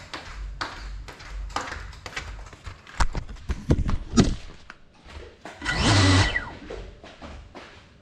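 Knocks and scuffs on a tile floor, then about six seconds in a short whirring burst of the small FPV drone's motors, lasting under a second, while the drone sits on the floor.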